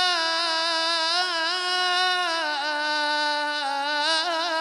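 A man's unaccompanied voice in Arabic devotional chant, holding one long vowel. It holds steady, then steps down in pitch about halfway and breaks into quick wavering ornaments near the end.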